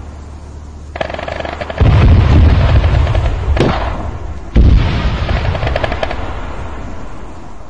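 Two heavy booms, the first about two seconds in and the second about four and a half seconds in, each fading into a long rumble. A sharp crack comes between them, and a short burst of rapid gunfire comes near the end.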